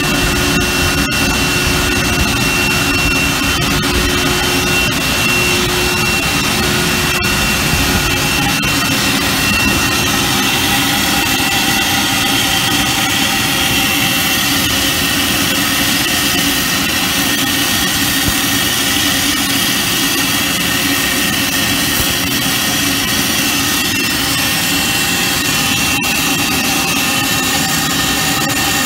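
Yoder W-20 tube mill running, forming and welding steel tube. It makes a loud, steady machine noise with a high, steady whine over it. A lower hum drops out about eight seconds in.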